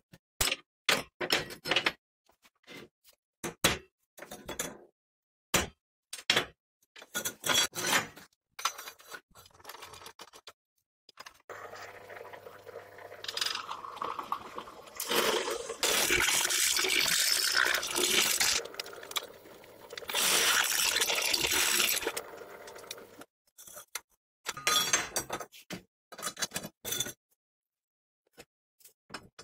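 Steel parts and tools clinking and knocking on a metal workbench, then through the middle a drill press motor runs as a step drill bit cuts into a steel square tube, in two louder stretches. Near the end, more clinking of steel pieces and nuts being handled.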